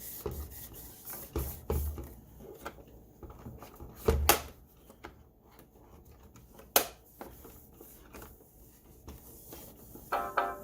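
Plastic clicks and knocks from handling a Roomba i7 robot vacuum and its dustbin. The loudest is a knock about four seconds in, with a sharp click near seven seconds, and a brief pitched tone sounds just before the end.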